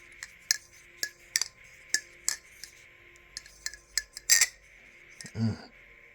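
Balisong (butterfly knife) being flipped: an irregular series of sharp metallic clicks as the handles swing around the pivots and knock together, the loudest near the end, followed by one dull low thump.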